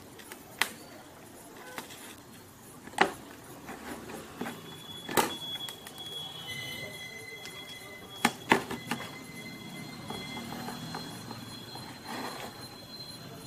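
Sharp clicks and taps of small tools and tiny screws being handled while a phone's motherboard screws are taken out, about five in all, two close together past the middle. From about a third of the way in, a faint, thin high-pitched whine of a few steady tones runs on almost to the end.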